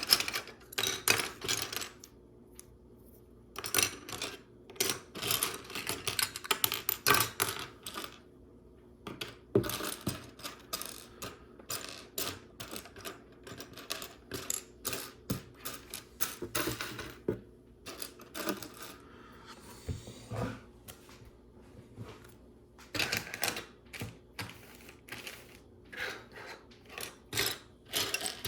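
Loose plastic Lego Technic pieces clicking and clattering in quick irregular clusters as they are sifted and pushed around by hand in a search for one part, with short pauses between bouts.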